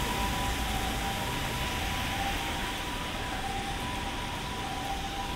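Japanese ambulance's two-tone hi-lo siren, switching back and forth between two fixed pitches and fading slightly, over a steady hiss of rain and street noise.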